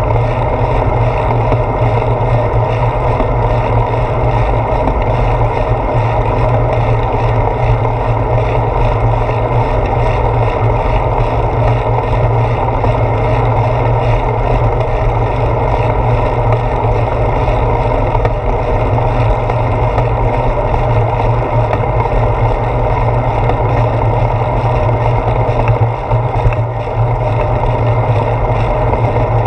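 Steady wind and road rumble from a bicycle rolling along paved road, picked up by a handlebar-mounted GoPro Hero 4 that carries the bike's vibration into the sound.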